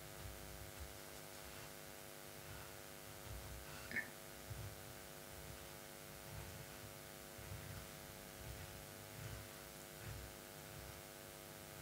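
Quiet room with a steady electrical hum, under faint soft handling sounds and a small click about four seconds in.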